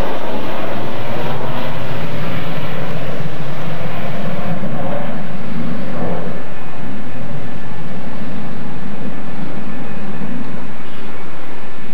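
Loud jet noise from an F-4E Phantom II's twin General Electric J79 turbojets as the jet passes overhead under power on a go-around and climbs away, the pitch sweeping about five to six seconds in as it passes.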